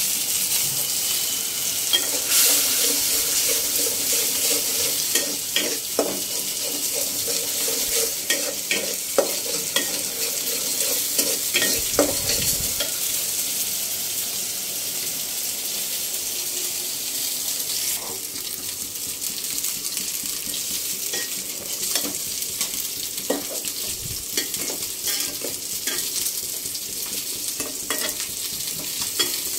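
Oil sizzling steadily as fish pieces shallow-fry in a frying pan, with scattered clicks and scrapes of a spatula stirring in an aluminium pot.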